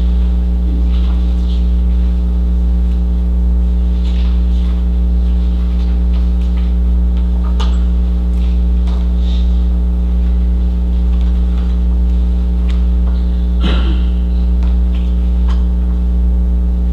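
Loud, steady electrical mains hum with a buzz of evenly spaced overtones, picked up by the meeting-room recording system, with faint scattered clicks and rustles and one brief louder noise near the end.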